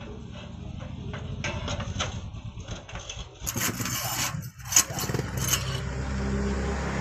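Steel clinks and taps as a hand-bent coil of steel rod is worked loose and lifted off a pipe held in a bench vise, with one sharp metal knock past the middle. An engine runs steadily underneath and grows louder toward the end.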